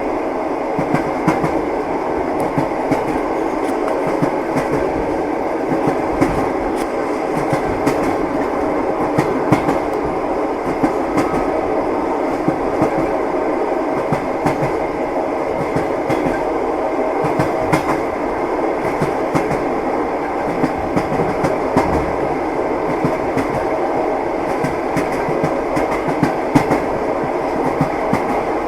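A train running on rails: a steady rumble with the wheels knocking over the rail joints.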